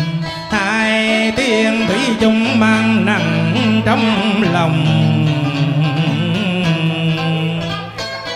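Live tân cổ music, a modern song set in the cải lương style. A male singer's line wavers with vibrato over plucked strings from a scalloped-fret guitar and a Vietnamese lute, with sustained low notes beneath.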